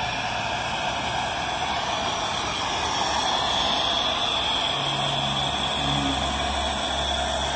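Wood-fired vertical fire-tube steam boiler running under pressure, with a steady hiss of escaping steam.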